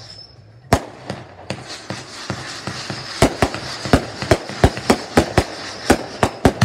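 Aerial fireworks going off: a single sharp bang about a second in, then a rapid run of bangs, about two or three a second, over a crackling hiss from about three seconds in.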